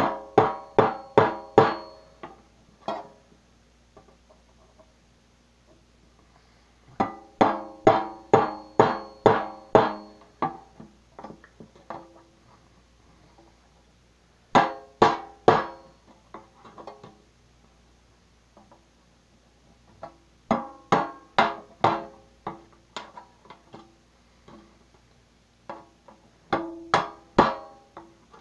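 Knife blade being struck through a thin metal cookie tin lid to cut small notches. Sharp ringing metal strikes come about three to four a second, in bursts of several blows with pauses between them.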